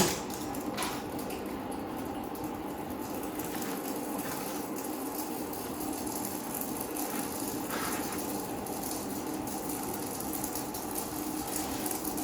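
Metal-melting furnace running with a steady hum, during a copper melt. A sharp clink comes right at the start, and a few faint knocks follow, as scrap copper pieces are dropped into the crucible.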